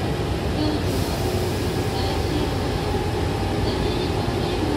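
Hankyu Takarazuka Line electric train running between stations, heard from inside the passenger car: a steady low rumble of the moving train.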